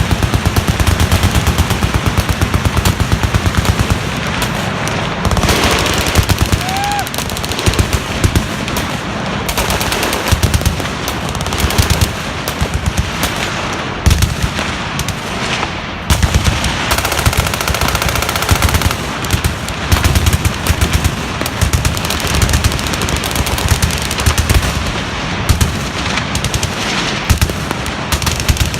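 Many machine guns firing at once: overlapping long bursts of automatic fire, dense and continuous, with no pause.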